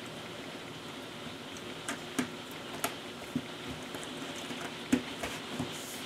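Cardboard jigsaw puzzle pieces being handled and pressed together on a tabletop: a few light, sharp clicks and taps, scattered over the second half, against a steady hiss.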